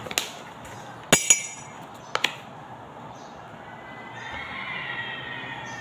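A metal spoon clinking against a drinking glass a few times with a short ringing tail, as cocoa powder is spooned in from a packet. Near the end comes a wavering high-pitched call of unclear source.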